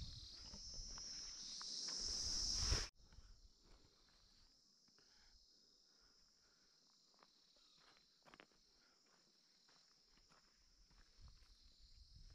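Steady high-pitched drone of an insect chorus, loud for the first three seconds and then dropping suddenly to a faint level, with scattered light crunches of footsteps on a gravel dirt track.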